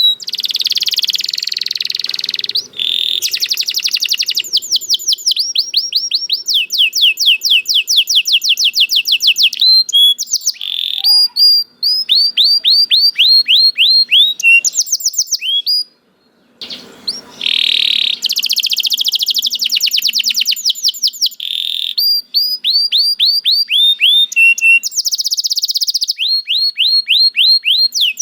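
Domestic canary singing: long runs of rapid, evenly repeated trill notes, switching from one trill to another, with a brief pause about halfway through.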